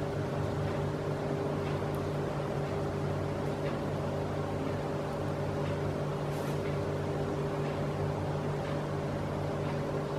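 Steady mechanical hum holding several fixed low pitches, with a few faint light taps over it from a finger tapping a fine-mesh sieve to dust powdered sugar.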